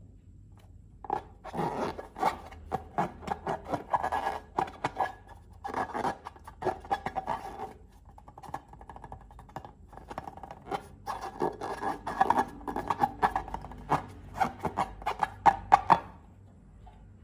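Close-up slime-making sounds: rapid runs of small sticky clicks and crackles in uneven bursts, with a short lull about halfway through.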